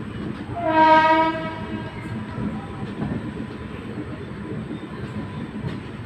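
The WAP7 electric locomotive's horn sounds one blast of about a second from the head of the train. It is heard from a coach over the steady rumble and clatter of the train running on the rails.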